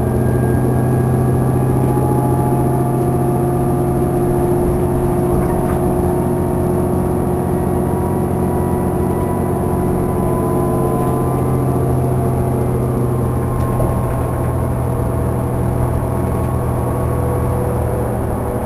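Inside a New Flyer DE40LF diesel-electric hybrid bus cruising at highway speed: a steady drone from the Cummins ISL inline-six diesel and Allison EP 40 hybrid drive, with several whining tones that drift slowly in pitch over road rumble.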